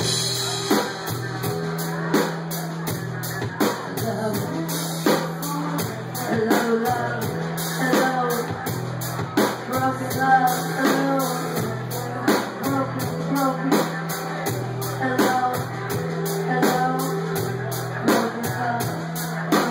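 Live rock band playing: a drum kit keeps a steady beat under electric guitar and bass, with a woman singing over it.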